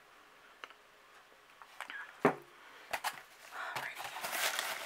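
A few light knocks and taps, then hands rummaging through shredded paper crinkle filler in a cardboard box, a rustling that builds over the last second or so.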